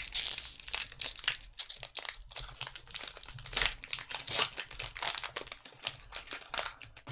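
Foil Pokémon card booster pack wrapper being torn open and crinkled by hand as the cards are worked out, a run of irregular crackling with a loud tearing burst at the start.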